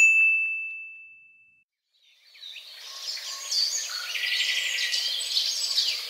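A single high bell-like ding that rings out and fades over about a second and a half. After a short silence, high, busy chirping starts about two seconds in and carries on.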